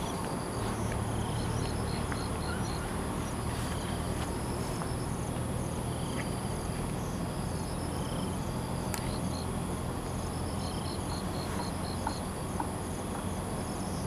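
Insects calling: a steady high-pitched drone with short pulsed chirps repeating every second or two, over a low even background hiss.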